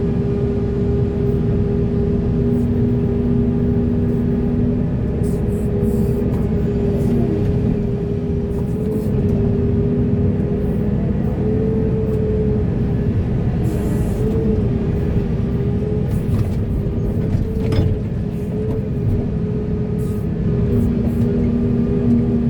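Large excavator's diesel engine running steadily with a low, even drone, with scattered short clicks over it.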